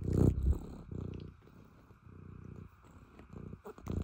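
Domestic cat purring close to the microphone, the purr coming in pulsing bouts that swell and fade with its breathing, loudest just after the start. A few light clicks near the end.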